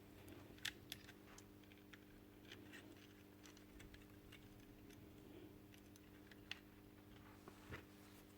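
Near silence: a faint steady low hum with a few light, scattered clicks.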